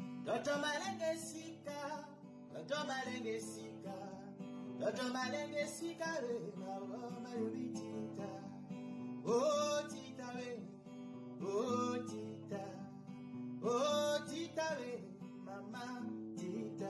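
Background music: acoustic guitar over steady low sustained notes, with a melody line that slides up and down every couple of seconds.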